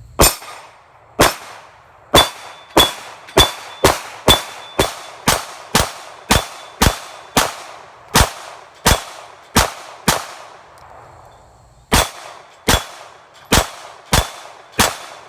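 Glock 23 compact pistol firing 9mm through a .40-to-9mm conversion barrel, a steady string of about seventeen shots at roughly two a second, then a pause of nearly two seconds and five more shots. A short metallic ring follows several of the shots.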